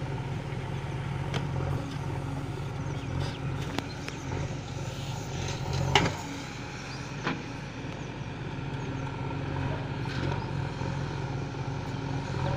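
JCB backhoe loader's diesel engine running steadily under load as the backhoe arm digs and swings buckets of soil, with a few sharp clanks, the loudest about six seconds in.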